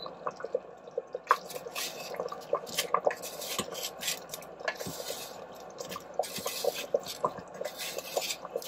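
Chunks of potato and carrot being scraped with a wooden spoon from a plastic basket into a pot of hot gravy, clattering and plopping into the liquid several times, over steady small popping from the thick gravy simmering.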